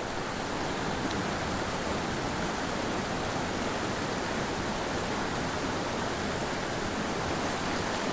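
Steady rush of a small, fast mountain creek flowing over rocks and boulders, an even unbroken water sound.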